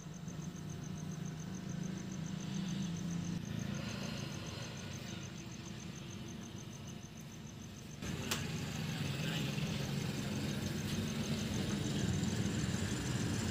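A steady low engine-like rumble that grows louder after a sharp click about eight seconds in. Through the first half, a fast, even, high-pitched pulsing like an insect trill sounds above it.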